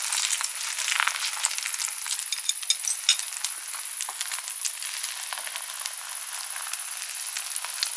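Thin egg omelette frying in oil in a frying pan: a steady sizzle with scattered crackles. In the first few seconds there are a few light metal clinks from a coil whisk in the pan.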